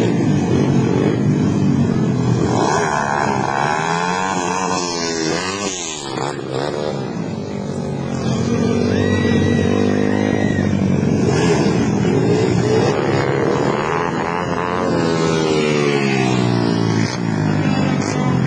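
Junior speedway motorcycle engines running and revving, their pitch rising and falling as the bikes accelerate and back off. About five to six seconds in, one bike passes close, its pitch rising and then dropping sharply.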